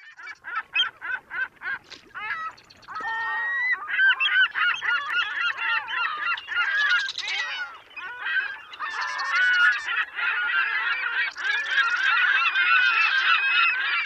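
A flock of birds honking: a quick run of separate calls, about five a second, then from about four seconds in a dense chorus of many overlapping honks.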